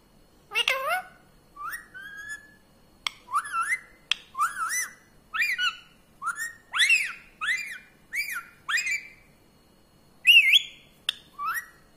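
Indian ringneck parrot giving a run of about a dozen short whistled calls, each a quick note that rises and falls, with brief pauses between them.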